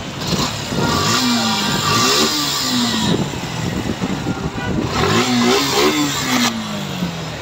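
Suzuki Gixxer FI ABS single-cylinder engine running and revved twice, pitch rising and falling each time. The valve tappet clearances have just been set (intake 0.07 mm, exhaust 0.13 mm) to cure a sound problem and a loss of pull traced to the exhaust valve not working properly.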